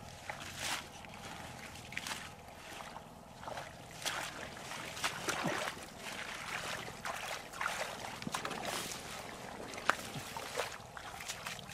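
Irregular rustling of leafy plants with squelching and splashing of wet mud, as hands push down through the weeds and dig in a muddy field.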